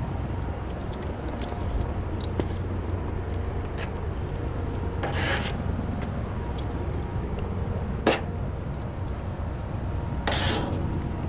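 Window-cleaning squeegee scraping across a pane of glass in two strokes, about five and ten seconds in, with a sharp click a little after eight seconds, over a steady low outdoor rumble.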